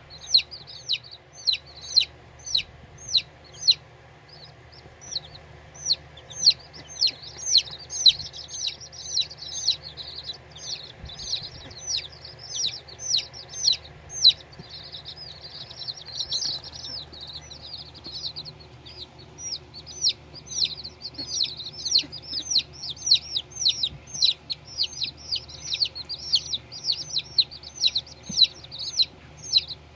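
Baby chicks peeping: a steady stream of short, high peeps that slide downward in pitch, several a second, with a brief lull about four seconds in.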